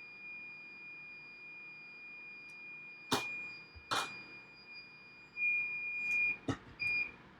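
A steady high-pitched electronic buzzer tone, getting louder and breaking up near the end before cutting off, with three sharp clicks of tools being handled.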